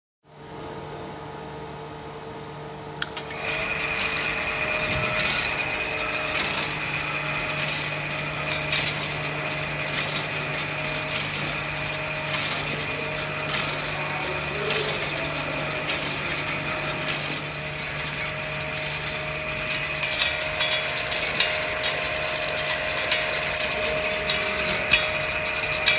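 Home-built camshaft-copying machine running. Its motor starts with a steady hum, and about three seconds in a louder machining sound joins: a steady high whine with a sharp scraping hit about once a second as the tool works the metal.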